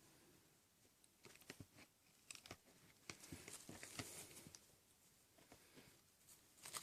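Faint patter and scuffling of six-week-old kittens playing, paws and claws scampering and scratching: a cluster of soft clicks from about a second in, then a few more near the end.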